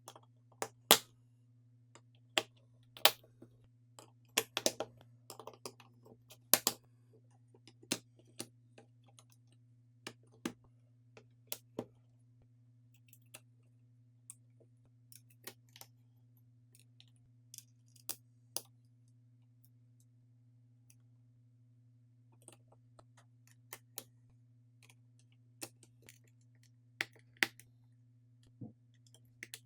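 Irregular sharp clicks and taps of small tools and tablet parts being handled during reassembly, a few every couple of seconds and thickest in the first several seconds, over a faint steady low hum.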